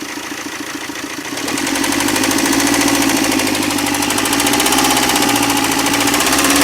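Tata Zest engine running with a rapid 'tak tak' knock from inside the engine, getting louder about a second and a half in. The knock fades when the number 4 injector's wire is pulled, and the mechanic traces it to the crankshaft.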